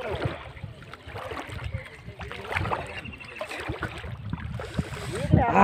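Water sloshing and splashing around the legs of someone wading through waist-deep water, with wind on the microphone. Faint voices come through, and a loud voice rises near the end.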